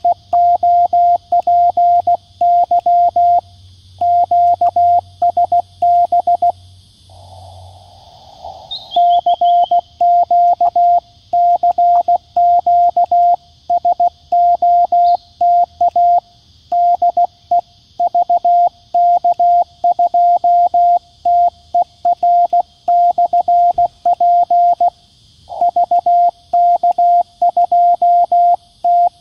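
Morse code sidetone from a QCX-mini CW transceiver: a steady mid-pitched tone keyed on and off at about 16 words per minute. It first sends 'NIL COPY QSB', meaning no copy because of signal fading. About seven seconds in comes a short pause with receiver hiss, and then a 'CQ CQ SOTA DE VK2TER/P' summit call.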